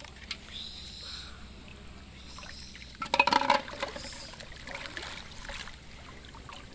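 Water trickling and sloshing at the water's edge, with a brief, much louder burst of splashing and rattling about halfway through.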